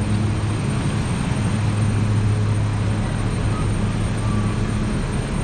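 A steady low mechanical hum, like an idling engine, under an even wash of outdoor noise.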